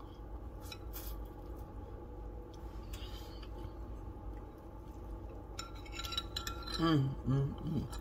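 Chopsticks clinking lightly against a bowl, a few faint taps, while noodles are eaten, over a steady low room hum. A voice starts up near the end.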